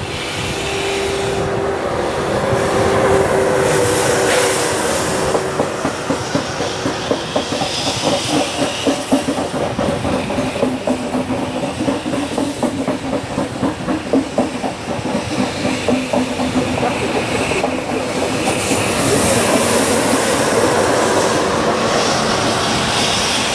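TGV high-speed electric train passing close by, its wheels clattering rhythmically over the rails through the middle of the pass. Under the clatter run a steady rushing of air and wheels and a steady hum, swelling again as the last coaches and the rear power car come by.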